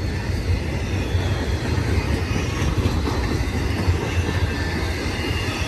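BNSF intermodal freight train's cars, loaded with containers and truck trailers, rolling steadily past on the rails.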